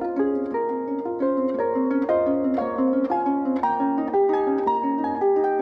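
Concert pedal harp played solo: plucked notes follow one another about three a second, each ringing on under the next in the instrument's middle register. Near the end one note is left to ring.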